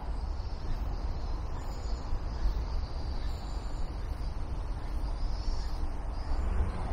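Outdoor ambience: a steady low rumble with faint high-pitched chirps now and then.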